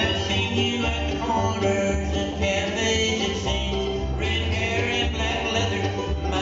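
Bluegrass band playing a fast song on banjo, fiddle, mandolin, guitar and bass, with a steady bass pulse.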